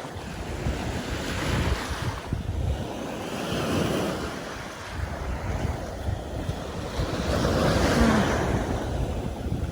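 Sea waves washing onto a beach, swelling twice, with wind buffeting the microphone and adding a low rumble.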